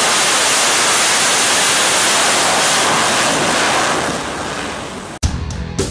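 F/A-18 fighter jet at full power on a carrier catapult launch: a loud, steady jet rush that fades after about four seconds as the jet gets away. It cuts off abruptly near the end, and rock music with drums begins.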